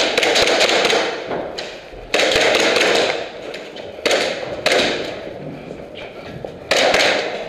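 KWA Glock 18c gas blowback airsoft pistol firing single semi-auto shots, about five sharp cracks a second or two apart, each ringing on briefly in the hall.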